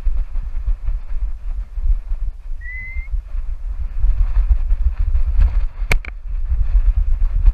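Low, uneven rumbling and buffeting on a camera strapped to a running goat: wind on the microphone and the jolts of her movement. A short rising whistle sounds about three seconds in, and a sharp click hits the camera about six seconds in.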